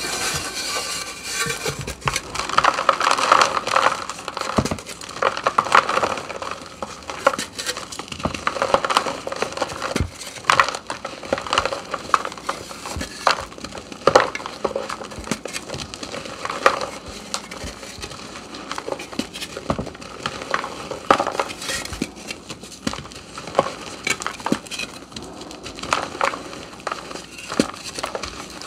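A block of reformed, dyed gym chalk being crushed and crumbled by hand: dry, irregular crunching and crackling, with crumbs and powder falling into a plastic basin. The crunching is densest in the first few seconds.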